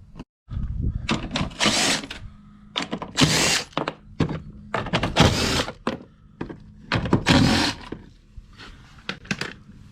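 Power driver spinning bolts out of the scooter's frame in four short bursts, with knocks and clunks of tools and parts between them.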